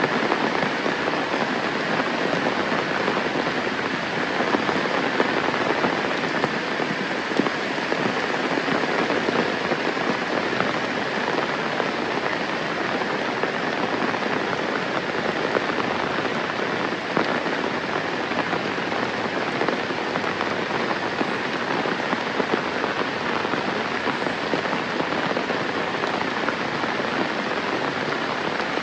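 Steady rain falling, a dense, even patter of drops that keeps up without a break.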